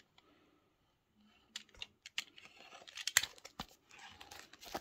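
Black plastic mailing bag crinkling and tearing as it is handled and slit open with a box cutter. Quiet at first, then sharp crackles from about a second and a half in, loudest a little after three seconds.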